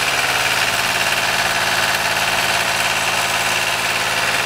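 Small engine of a fire truck's skid-mounted water pump unit running steadily with a rapid, even beat.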